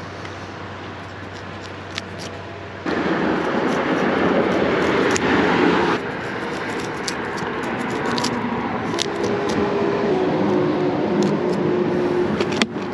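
Steady outdoor road and wind noise on a highway bridge, louder for a few seconds about three seconds in, with scattered light clicks as scissors snip through a bait fish.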